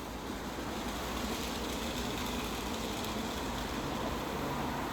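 Automatic car wash running on a car, a steady hiss of water spray and machinery.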